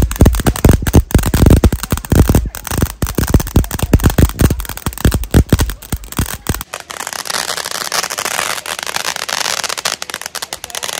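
A string of firecrackers going off in a rapid, irregular run of loud bangs. About two-thirds of the way through the bangs stop abruptly and a steady crackling hiss takes over.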